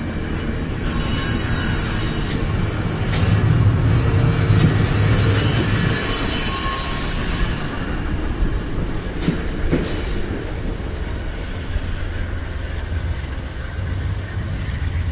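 VIA Rail passenger train's stainless-steel coaches rolling past on jointed track: a steady rumble of wheels on rail with a few sharp clicks. The sound eases slightly near the end as the last car pulls away.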